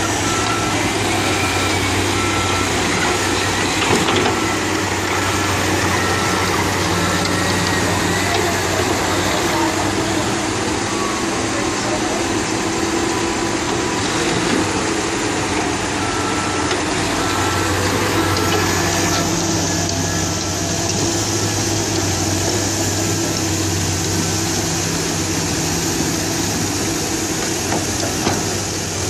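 Diesel engines of a Caterpillar D5K crawler dozer and a Komatsu hydraulic excavator running steadily at work. A reversing alarm beeps about once a second, first for the opening seven seconds or so and again from about sixteen to twenty-four seconds.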